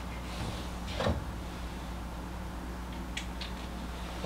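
Marker pen squeaking on a whiteboard in two quick short strokes a little after three seconds in, over a steady low room hum. A soft thump comes about a second in.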